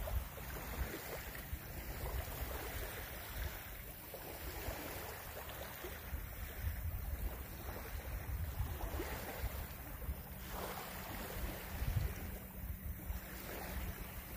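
Wind buffeting the microphone as a low rumble, with small waves lapping at the shore in soft swells every few seconds.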